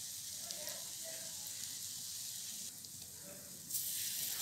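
Batter-coated bread frying in butter in a flat pan, a steady sizzle. About three and a half seconds in the sizzle grows louder as a second dipped slice is laid into the hot pan.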